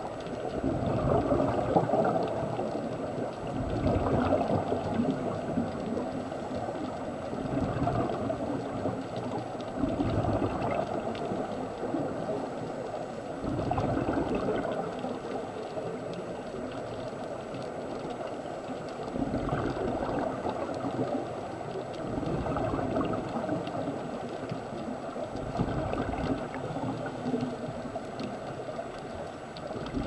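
Scuba regulator heard underwater: bubbly exhalations swelling every few seconds, with a low rushing between breaths.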